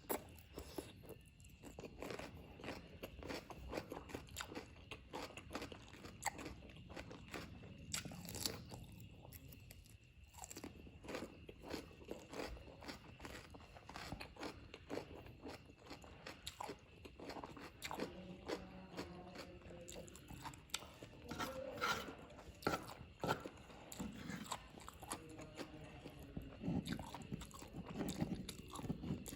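Close-miked eating of spicy Korean-style fried noodles: chewing and biting with many small wet clicks of the mouth.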